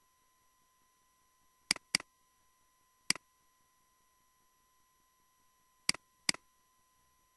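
Computer mouse button clicks: five sharp clicks, in two close pairs with a single click between them, each a quick press-and-release snap. A faint steady electrical tone runs underneath.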